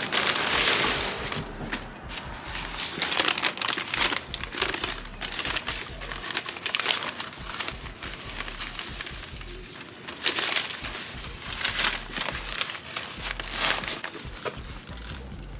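Sandwich wrapper being unwrapped and handled, crinkling and rustling in irregular bursts.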